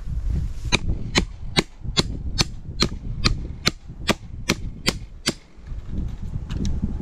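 Claw hammer striking a wooden fence post, fixing barbed wire to it: about a dozen sharp, evenly spaced blows, roughly two and a half a second, stopping a little past five seconds in.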